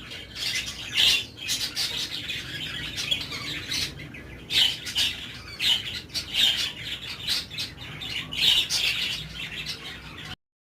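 Caged birds calling in a run of short, harsh chirps and squawks, a burst every half second to a second.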